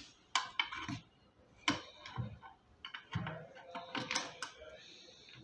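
Light metal clicks and small taps, irregular and scattered, as screws are handled and set into the holes of an office chair's steel seat mechanism.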